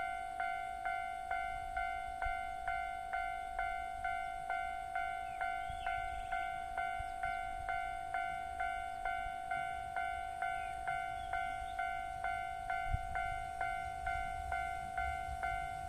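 Japanese railway level-crossing alarm bell ringing steadily at about two strokes a second. A low rumble rises near the end.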